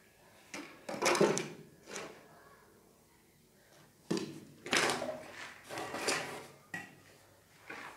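Orange PVC drain pipe and elbow fitting knocking and scraping on a concrete floor as they are handled and pushed into place, in several separate knocks and scrapes, the loudest about a second in.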